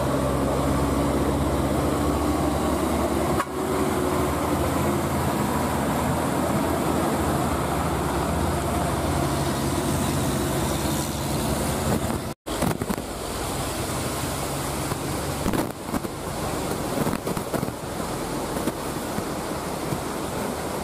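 Heavy truck diesel engine running as traffic passes on a wet road, over a hiss of tyres on water. About twelve seconds in the sound cuts off suddenly and gives way to a steady rushing noise with no engine in it.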